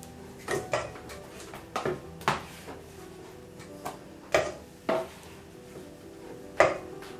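A spatula knocking and scraping against a metal baking tray and a stainless steel mixing bowl while lumps of set pastry cream are moved from one to the other: about eight sharp, irregular clacks, the loudest near the end.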